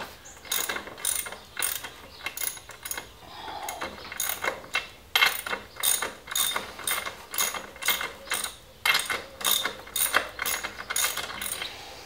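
Socket ratchet clicking in short repeated strokes, about two a second, as the rear axle nut of a Triumph Scrambler 900 is spun off, with a brief pause a few seconds in.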